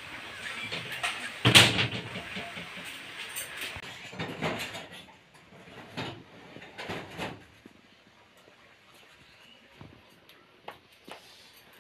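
Rustling and knocking of vegetables being handled and cut, with one loud knock about a second and a half in and a few more knocks over the next six seconds. It then goes quiet apart from faint clicks.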